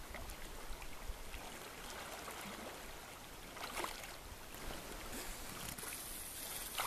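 Steady rush of river water flowing around a wading angler, with a few brief faint noises over it.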